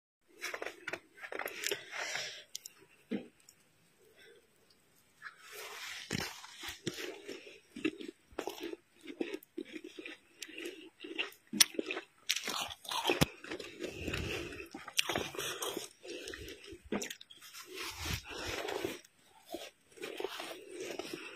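Snow crunching in irregular bursts, several crunches a second, with a quiet stretch of a couple of seconds a few seconds in.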